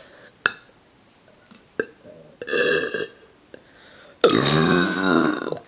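A woman's long, loud, deep burp from about four seconds in, lasting about a second and a half, after a shorter sound about two and a half seconds in.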